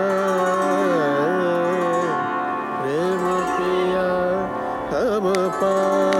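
South Asian classical singing: a voice holding long notes that slide down and back up in pitch, over a steady drone.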